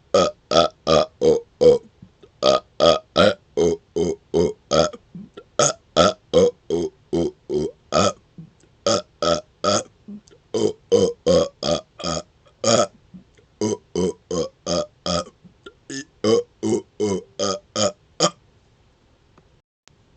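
A man burping on command, bringing up swallowed air in rapid-fire runs of short burps, about three a second in strings of five to eight with brief pauses between runs. The burps stop near the end.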